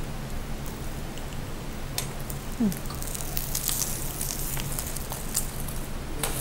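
An omelette frying in a pan on a gas stove: a soft steady hiss with scattered small crackles and pops.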